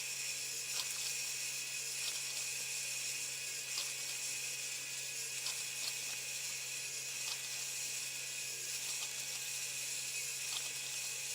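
Drill press running steadily with a constant hum and hiss, a light tick about once a second, while it repeats the same shallow bore with a 1/2-inch Forstner bit.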